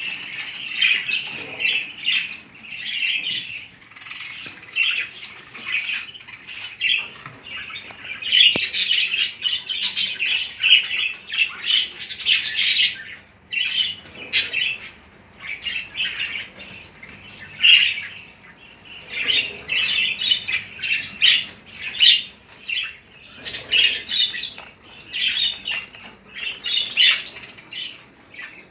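Several budgerigars chattering, a constant mix of overlapping chirps and squawks, busiest for a few seconds around a third of the way in.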